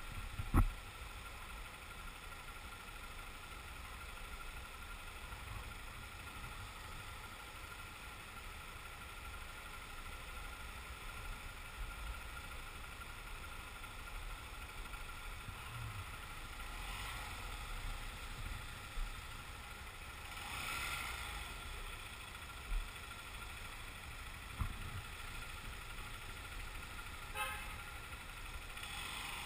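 Motorcycle engine ticking over in stationary traffic, a steady low rumble with street traffic around it. A sharp knock about half a second in is the loudest sound, and a few lighter thumps come in the second half.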